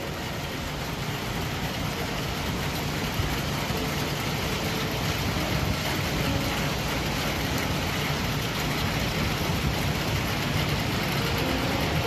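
Car engine running, a steady rumble with an even hiss over it.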